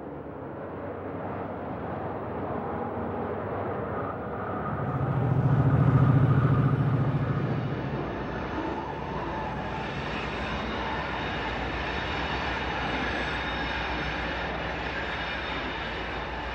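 A consist of diesel road-switcher locomotives passes close by, the low steady engine drone swelling to its loudest about six seconds in. The steady rolling noise of the freight cars follows as the trailer-on-flatcar train goes by.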